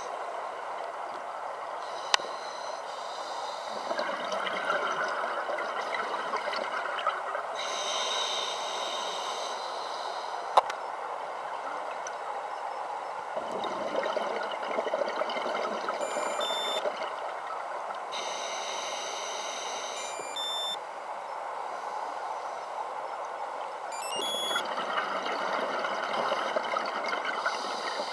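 Underwater sound of scuba diving: a steady hiss, with louder bubbling bursts of regulator exhalation every few seconds. A few short high beeps sound in the second half, with two sharp clicks.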